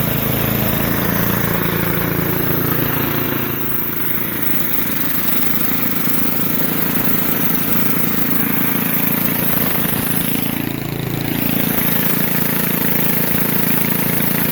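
Portable air compressor running steadily after filling a truck tire to 40 psi, and shutting off just after.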